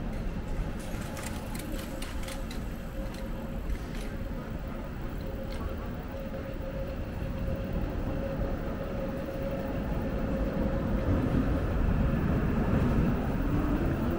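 City street ambience with a steady hum and low rumble, a few light clicks in the first few seconds, and a rising whine that swells near the end.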